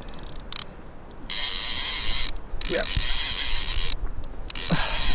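Fishing reel being cranked in three bursts of a second or so each, its gears whirring, as a hooked smooth-hound shark is wound in.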